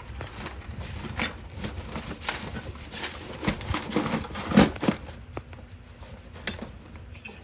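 Irregular light clicks and knocks over a steady low hum, with a louder cluster of knocks about four and a half seconds in.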